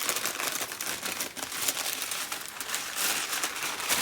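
Packing material crinkling and rustling as hands unwrap a parts package, a dense run of quick crackles.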